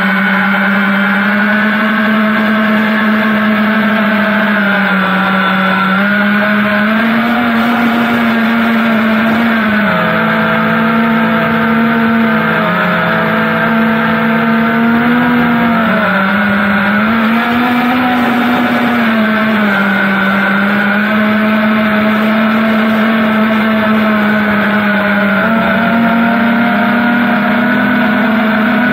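FPV quadcopter's motors and propellers whining steadily, the pitch rising and falling every few seconds with the throttle.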